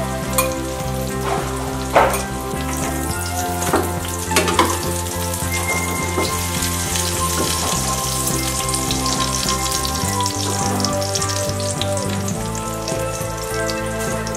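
Egg omelette frying in oil in a nonstick pan: a steady crackling sizzle, with a few louder clicks in the first five seconds. Background music with changing chords plays underneath.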